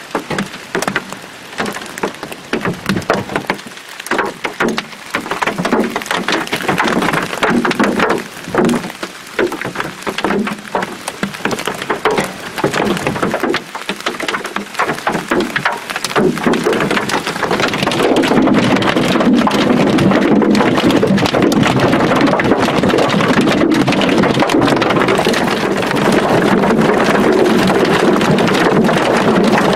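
Hail falling hard: a dense patter of many small impacts. About sixteen seconds in it grows louder and turns into a steadier rush.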